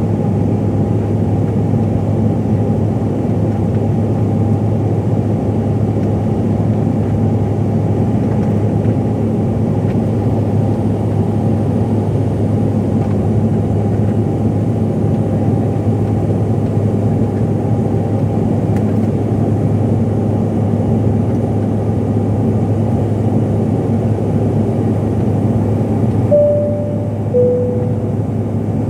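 Steady drone of a CRJ-700's cabin, from its rear-mounted turbofan engines and the airflow. About two seconds before the end, a two-note cabin chime sounds, high then low.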